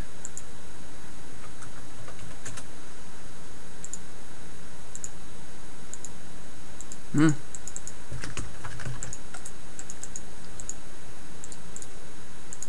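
Typing on a computer keyboard, entering a shape's dimensions: scattered light key clicks, thickest in the second half. A brief voice sound about seven seconds in.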